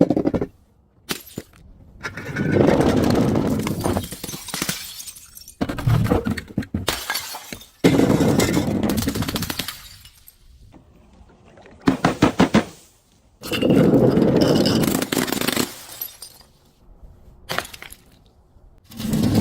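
Glass bottles breaking and being crushed: a series of separate crashes, several lasting a second or two, with quieter gaps between.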